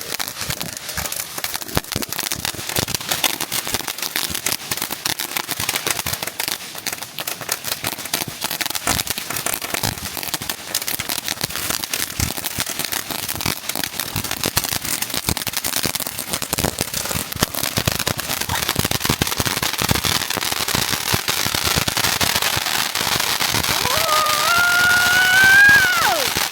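Consumer firework just lit on the ground, crackling and popping rapidly and without a break, growing louder toward the end. Near the end a brief pitched wail rises and falls at the loudest moment.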